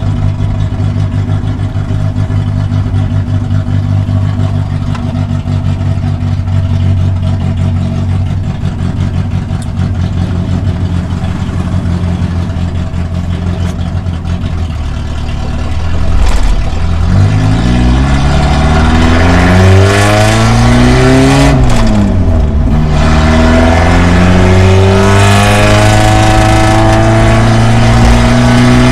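Toyota Starlet KP61's four-cylinder engine heard from inside the cabin, loud through an exhaust still waiting for its muffler. It runs steadily at first, then about halfway through revs up hard under acceleration, the pitch rising, dropping at a gear change, and rising again.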